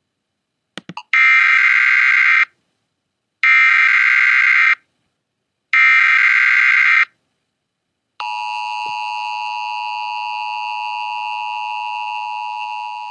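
Emergency Alert System broadcast signal: three loud, buzzy data bursts of about a second each, then a steady two-tone attention tone from about eight seconds in, beginning to fade near the end.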